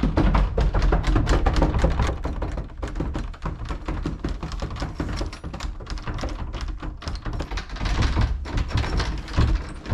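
A rapid clatter of taps and knocks over a steady low rumble, thinning a little in the middle and growing denser again near the end.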